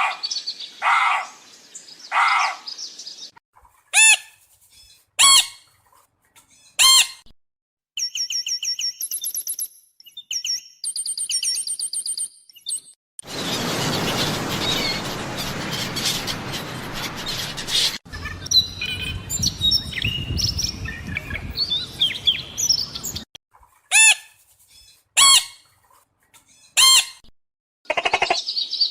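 A string of different birds calling, one short clip after another: single loud pitched calls a second or two apart, fast stuttering trills, and a dense noisy stretch of many chirps in the middle.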